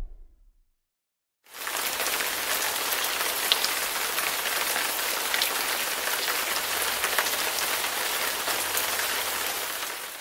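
Fire-crackling sound effect: an even hiss with scattered small crackles. It comes in after a moment of silence, holds steady and fades out near the end.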